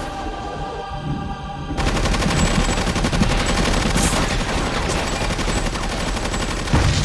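Action-film soundtrack: a held tone for about two seconds, then rapid, sustained machine-gun fire over music, with a louder blast starting near the end.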